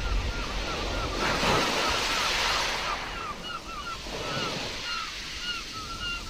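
Nature-sounds ambience: a wave-like rushing noise swells and fades about a second in, with a bird chirping repeatedly, a few short chirps a second.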